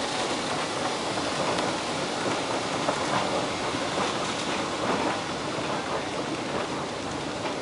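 Westinghouse escalator running while carrying a rider down: a steady mechanical noise with occasional faint clicks.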